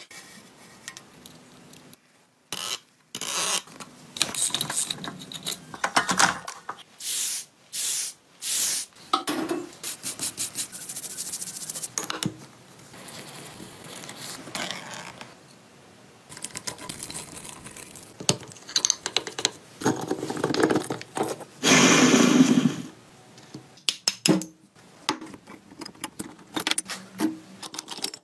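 A string of short workshop sounds from taking apart a motorcycle's engine and final drive: metal tools and parts clinking, knocking and scraping, cut together with abrupt changes. About three-quarters of the way through a louder noisy burst lasts about two seconds.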